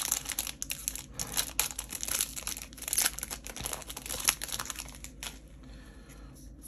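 Magic: The Gathering booster pack's foil wrapper crinkling and tearing as the pack is opened, in a dense crackle that dies down about five seconds in.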